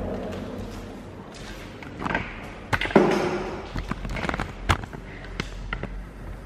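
A person climbing in through a window: brushing and scuffing noises with several knocks and thumps. The loudest thump comes about three seconds in.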